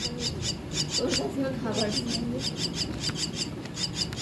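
Javan myna chicks giving rapid, repeated rasping calls, about five a second.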